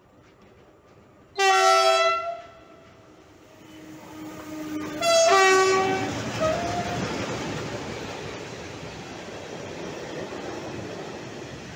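Two blasts of a locomotive horn, each under a second, about three and a half seconds apart. A freight train then passes close by, its wheels rumbling and clattering over the rails.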